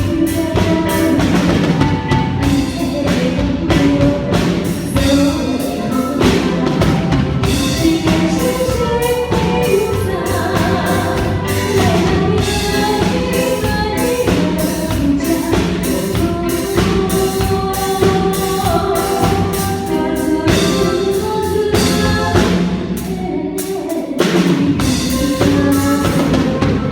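Live band music with a singer over a steady drum-kit beat; the bass and drums drop out briefly about three-quarters of the way through.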